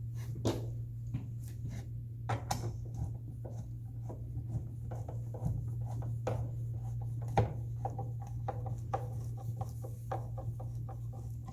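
A hand screwdriver driving small screws into a toy dollhouse's panels: scattered clicks, scrapes and rubbing as parts are handled and screws turned, with faint squeaks in the second half, over a steady low hum.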